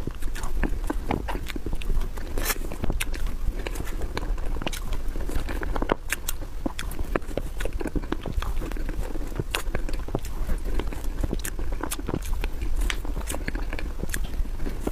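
Close-miked eating sounds of soft cream mousse cake: wet mouth smacking and many quick, irregular clicks from lips and spoon, over a steady low hum.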